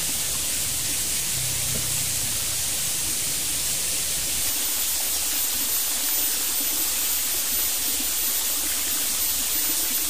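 Steady rushing of a small stream's flowing water.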